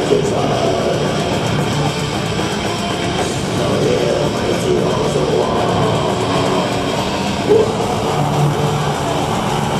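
Black metal band playing live, heard from within the crowd: a dense, steady wall of electric guitars and drums.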